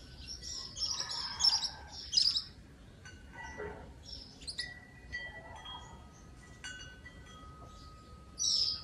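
Wind chimes ringing: clear metallic tones at several pitches, each starting sharply and ringing on for a second or more, struck at irregular intervals, among bright high chirps of birds.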